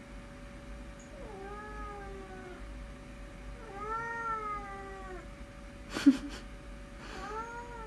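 Pet cat meowing three times in long, drawn-out calls that rise and then fall in pitch, answering its name. A short, sharp knock comes about six seconds in.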